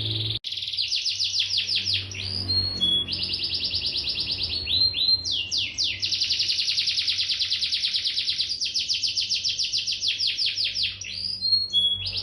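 Domestic canary singing a long, fast song of trills and rolls, one rapid run of repeated notes changing into the next, with a short break about half a second in. A faint low hum runs underneath.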